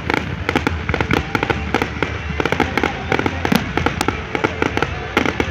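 Fireworks display going off in a dense, rapid string of bangs and crackles, many each second.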